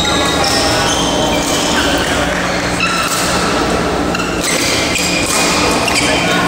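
Busy indoor badminton hall: many short high-pitched squeaks of court shoes on the playing mats, over a steady hum and general hall noise.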